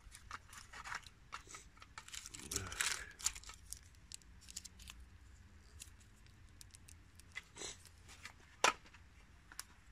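Handling noise from small items being picked through in an old metal tin: light clicks and taps with brief paper-packet crinkling and rustling, busiest around the third second, and one sharper click near the end.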